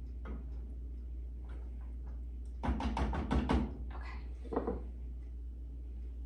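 A spatula tapped against the rim of a stainless steel saucepan in a quick run of about seven knocks, knocking off the pumpkin mixture after stirring, followed by one softer knock about a second later.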